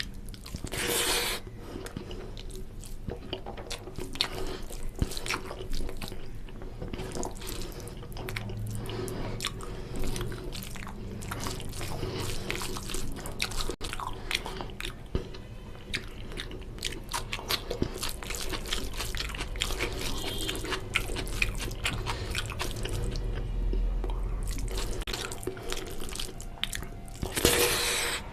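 Close-up wet chewing and lip-smacking of oily mutton curry and rice: a steady stream of small clicks and squelches, with two short, louder noisy bursts, one about a second in and one near the end.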